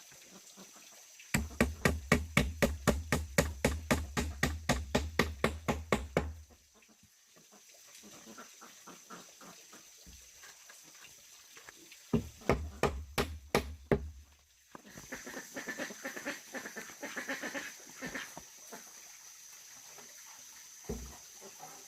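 Rapid, even knocking, about five heavy blows a second, in a run of about five seconds and a shorter run later.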